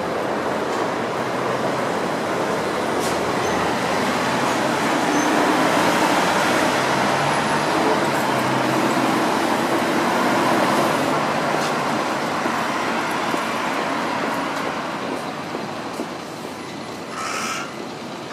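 Heavy city road traffic, a steady wash of passing vehicles that swells through the middle. Near the end a hooded crow starts calling, a few harsh caws in quick succession.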